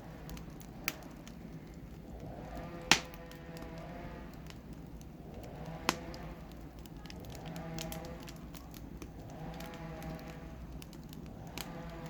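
Wood fire crackling in a fireplace, with scattered small snaps and a few sharp pops, the loudest about three seconds in. A pitched, wavering sound recurs every couple of seconds underneath.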